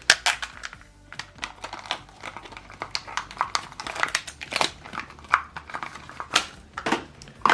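Plastic packaging of a black ink cartridge crinkling and crackling in irregular bursts as it is handled and opened.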